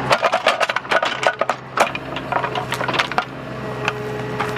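Tree roots and wood cracking and snapping as a Bobcat mini excavator pulls a tree over by its trunk: a rapid run of snaps over the first three seconds, then fewer and sparser. The excavator's engine runs steadily underneath.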